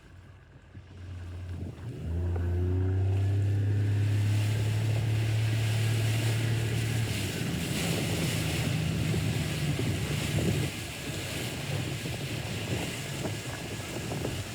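Motorboat's outboard motor speeding up about two seconds in and running steadily, then changing to a higher pitch about halfway through, with wind and water rushing over the microphone.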